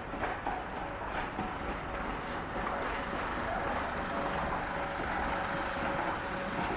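A train of Mk1 passenger coaches rolling slowly past, wheels running on the rails with a steady rumble and a few faint knocks.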